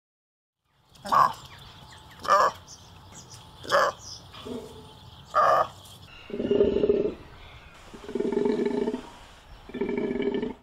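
Takin (Budorcas taxicolor) calling: four short, sharp calls spread over about four seconds, then three longer, lower calls of about a second each.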